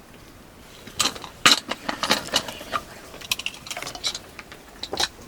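Metal cooking utensils clattering: a run of quick, irregular clicks and knocks starting about a second in.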